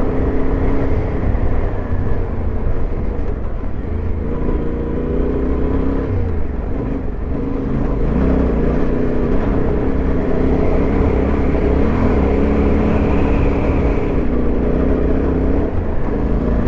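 Yamaha Ténéré 700's parallel-twin engine running as the bike is ridden along a dirt track, its pitch wavering up and down with the throttle over a heavy low rumble.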